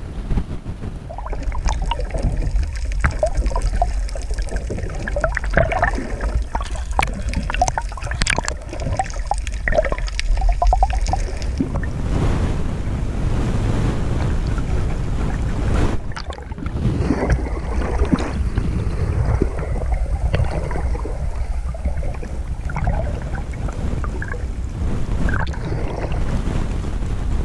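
Moving water heard through an underwater camera's housing just below the surface: a steady low, muffled rumble with many irregular small clicks and crackles, which are busiest in the first half.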